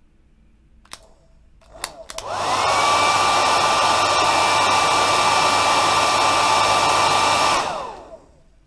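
Heat gun blowing hot air to soften the phone's screen adhesive. After a few clicks, its fan spins up to a loud, steady rush with a high whine. It runs for about five seconds, then the whine falls away as it switches off and spins down.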